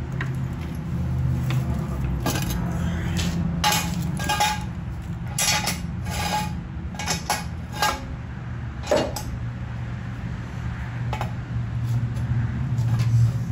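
Irregular metal clinks and clanks of a floor jack and jack stand being handled while a car is raised, about a dozen scattered knocks over a steady low hum.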